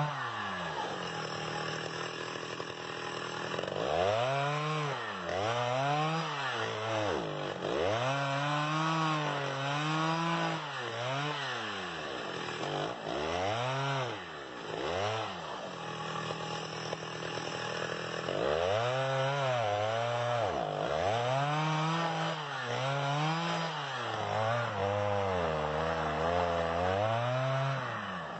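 Chainsaw engine dropping from high revs to idle at the start, then blipped up and down over and over, each rev rising and falling within a second or two, with a short steady idle in the middle.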